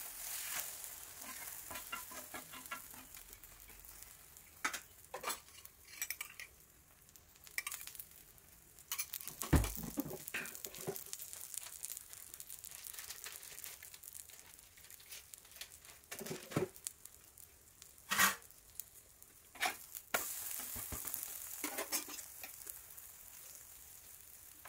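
An egg omelette sizzling in oil on an iron tawa, with a steel spatula scraping and tapping on the pan. About ten seconds in there is a heavy thud as the omelette is flipped over, and another knock of the spatula comes later.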